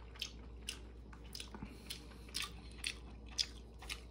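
A person chewing and eating pork bone soup up close, with short sharp mouth clicks and smacks about twice a second, the sharpest a little past three seconds in.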